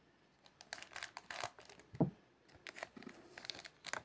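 Wrapper of an Upper Deck hockey card pack crinkling and tearing as it is opened, in a run of short sharp crackles, with one duller thump about two seconds in.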